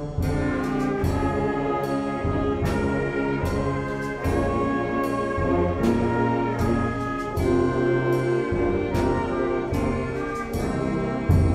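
Concert band playing, trombones, tubas and saxophones holding full brass chords over steady percussion strokes, with a loud accented hit near the end.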